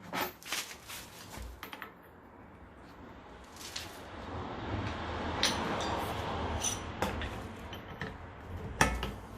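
Metal tools clinking and knocking against a Daewoo Lanos front wheel hub as it is being driven out of the knuckle: a run of quick taps at first, scattered knocks later, the sharpest near the end. A hiss swells and fades in the middle.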